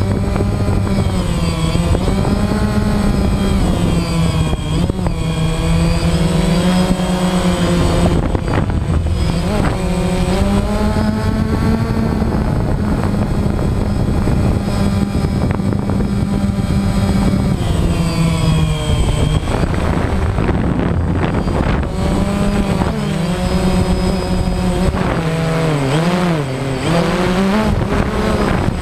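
DJI Phantom quadcopter's motors and propellers whirring close to the mic, a steady buzzing tone whose pitch wavers up and down as the drone climbs and adjusts its throttle.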